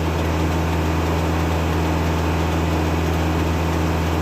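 Kubota tractor's diesel engine running steadily, driving a Foley-Belsaw circular sawmill, with an even low hum and no change in load, so the blade is not in a cut.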